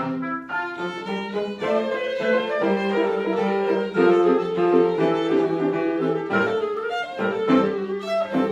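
Live classical chamber music from a quintet of clarinet, oboe, violin, cello and piano, with bowed strings prominent and several parts moving through quick changes of note.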